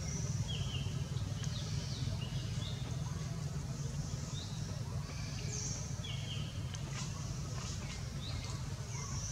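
Birds chirping on and off, many short high calls, some sliding down in pitch, over a steady low rumble of outdoor ambience.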